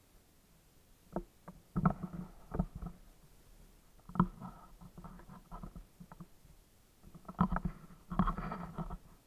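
Footsteps on a wooden plank boardwalk: irregular thuds and knocks of the boards underfoot, in clusters about a second or more apart.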